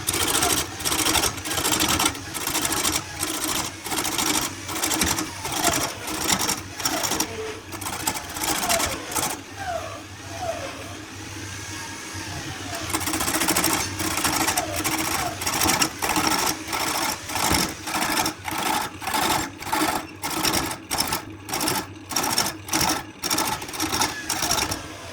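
Repeated rhythmic strokes of a tool working wood, about two to three a second. They ease off for a few seconds about halfway through, then resume.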